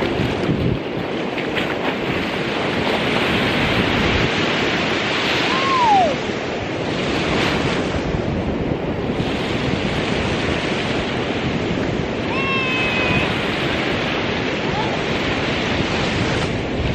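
Small waves washing in and breaking on a sandy shore in a steady, swelling hiss, with wind on the microphone. Two brief high-pitched cries cut through, one falling in pitch about six seconds in and another about twelve seconds in.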